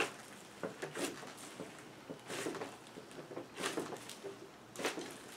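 Hands squeezing and kneading a big batch of floam slime, glue slime packed with polystyrene beads: clicky, squishing noises in separate bursts, about one a second, with each squeeze of the beads.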